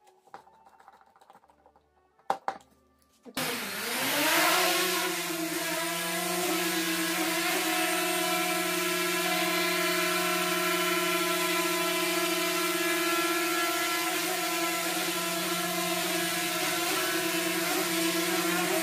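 DJI Mavic Mini quadcopter's four brushless motors and propellers starting abruptly about three and a half seconds in, after a couple of sharp clicks, then lifting off and hovering with a steady, even multi-tone whine. This is the test hover after a front arm replacement.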